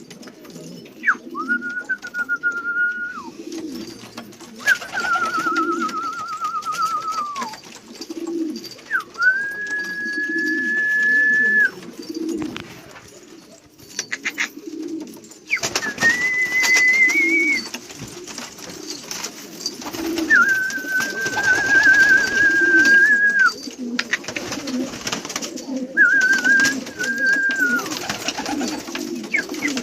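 Domestic pigeons cooing steadily in a loft. Six long, steady, slightly warbling high whistles come one after another over the top of the cooing.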